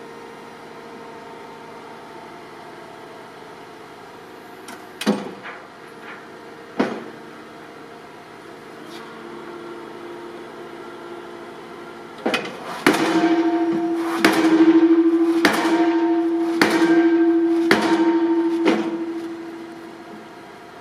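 Piling rig's hammer driving a steel I-beam into the ground, over the steady hum of the rig's engine. Two single heavy blows come about 5 and 7 seconds in, then more than halfway through a run of about seven blows roughly a second apart, with the engine running louder under load until it eases off near the end.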